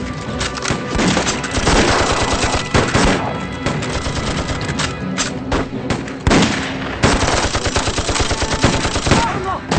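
Battle gunfire from a war drama: rapid runs of machine-gun fire mixed with single rifle shots, with a few short lulls, over background music.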